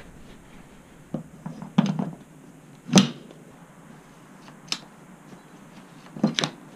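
Separate knocks and clicks of hardware and hand tools being handled, about five in all, the loudest about three seconds in.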